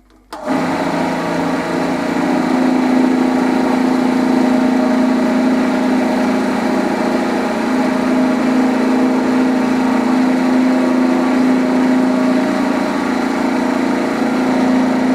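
Small hobby wood lathe switched on about half a second in, its electric motor then running at a steady speed with a constant hum.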